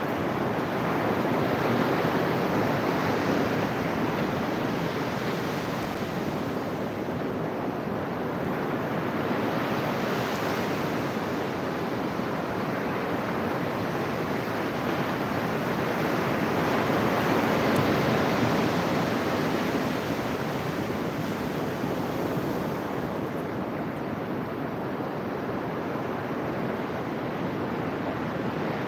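Ocean surf breaking on a beach: a steady rush of noise that swells louder twice, a few seconds in and again about halfway through.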